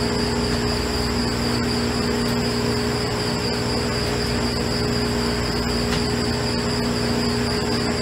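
Grease-plant machinery running steadily while grease is pumped into a cooling vessel: a constant hum with a high-pitched whine over a noisy machine bed.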